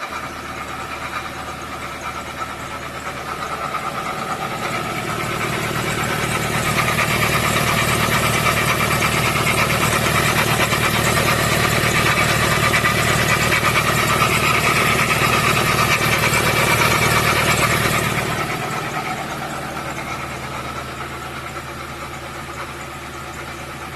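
Ford Transit 3.2 L five-cylinder diesel engine idling. It grows louder a few seconds in, stays steady, then fades off after about 18 seconds.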